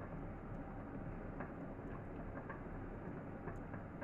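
Stainless steel pot of water heating on the hob around glass jars of stock: a steady low rushing noise with faint ticks now and then, as the water comes up towards a simmer.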